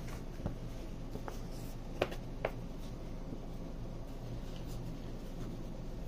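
A few light clicks and taps from small parts being handled, over a steady low hum; the sharpest click comes about two seconds in.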